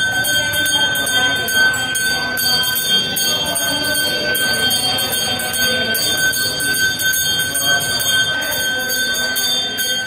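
Temple bell rung rapidly and without pause throughout, its steady ring held over fast repeated strikes.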